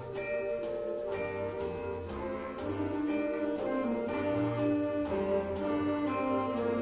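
Concert band playing: wind and brass instruments hold sustained notes over a steady beat of struck notes, with a marimba played with mallets.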